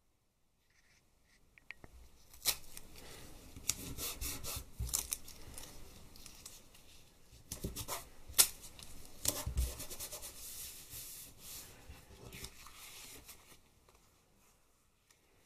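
A hand rubbing and pressing on the back of a sheet of paper laid over inked plastic, transferring an oil-paint monoprint. The rubbing is steady, with paper rustles and a few sharp knocks, the loudest about eight seconds in, and it stops shortly before the end.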